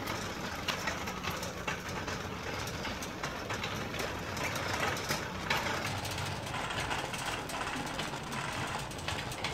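Metal shopping cart rolling over a hard store floor, its wheels rumbling and its wire basket rattling with many small clicks.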